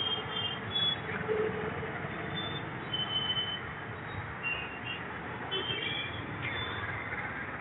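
Street traffic noise: a steady rumble and hiss of passing vehicles, with several short high-pitched beeps scattered through it.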